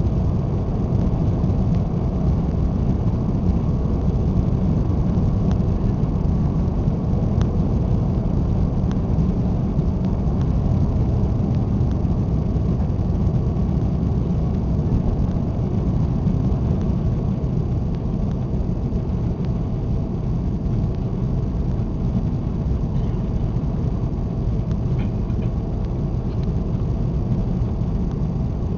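Steady low roar of an Airbus A340-600's four Rolls-Royce Trent 500 engines and the rushing air, heard from inside the passenger cabin during the climb after takeoff.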